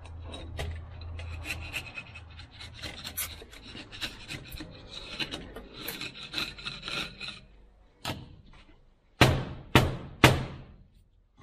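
A metal tool scrapes and rasps inside a steel starter motor housing, working loose packed sand and dirt, with many small clicks and grinding strokes. The scraping stops after about seven seconds. It is followed by a knock and then three loud knocks near the end.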